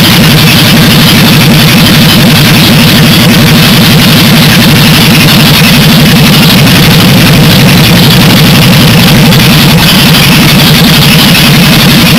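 Jaguar 4.2-litre XK straight-six running loud and steady at idle on a test stand, through open, unmuffled exhaust pipes, during a cold-start run.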